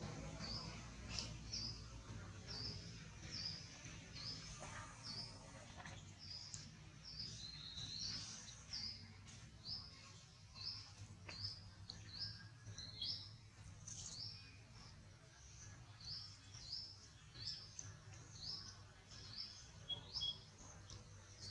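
A bird calling in the background, repeating a short high chirp about three times every two seconds, steady and unbroken, over faint low background noise.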